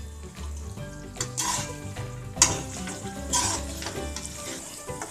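A slotted metal spoon stirring chilli paneer gravy in a metal kadhai, scraping the pan about three times a second apart, while the gravy sizzles.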